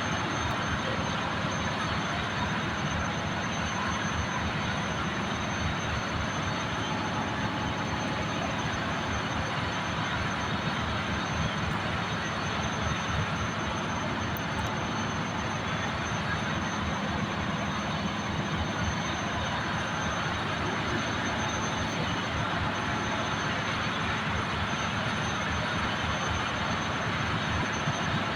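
Steady ship engine-room machinery noise: a dense, constant drone with a low hum and a thin, high, steady whine above it.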